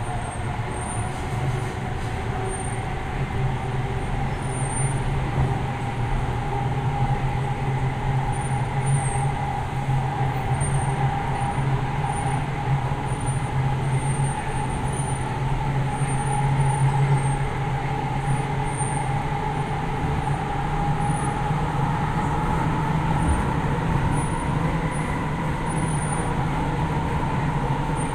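Hyderabad Metro train running between stations on the elevated line, heard from inside the carriage: a steady rumble with a whine that slowly drifts up and down in pitch.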